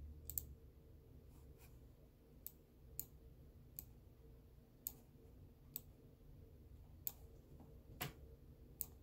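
Faint, irregularly spaced clicks from a computer being operated, about ten of them, the loudest one near the end, over a quiet low hum of room tone.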